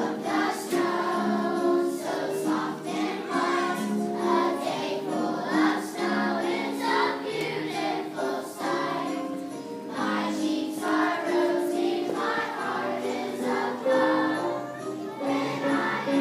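Children's choir singing a song together, accompanied on an electric keyboard.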